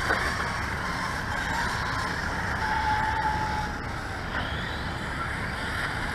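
Electric radio-controlled car driving on wet ground: a motor whine that rises and falls in pitch over a steady hiss.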